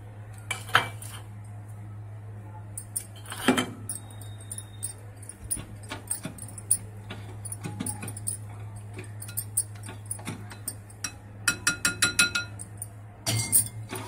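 A plastic spoon stirring and scraping moist dalia in a glass bowl. It clinks and knocks against the glass, with a quick run of ringing clinks near the end. A steady low hum runs underneath.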